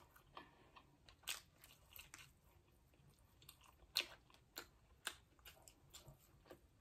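Faint, sparse clicks and crunches of eating: chewing with the mouth shut and handling a corn cob and seafood on the plate, close to the microphone. The sharpest click comes about four seconds in.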